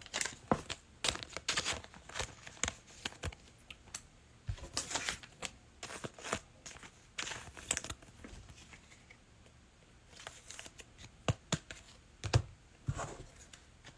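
Trading cards and foil card packs being handled: irregular short crinkles, rips and card flicks, quieter for a couple of seconds past the middle.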